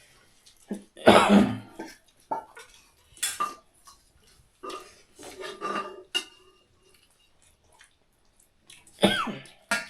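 Plates and eating utensils clinking and scraping during a meal, in short separate knocks with quiet gaps, the loudest a brief burst about a second in.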